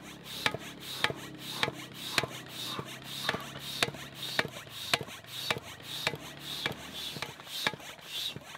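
Manual floor pump worked in quick, even strokes, a sharp click and a rush of air on each stroke at a little under two a second, inflating the air beams of an inflatable tent.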